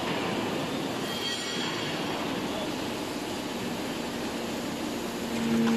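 Hydraulic metal bale breaker running, a steady mechanical noise without rhythm. Near the end a steady hum with a few tones comes in and gets louder.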